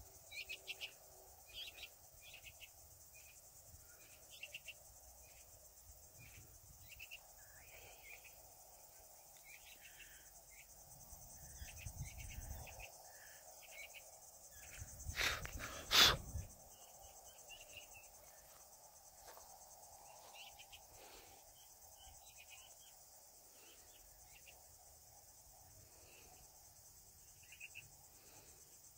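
Grassland crickets chirring steadily, with many short high chirps and a low wind rumble on the microphone. Two sharp knocks about halfway through are the loudest sounds.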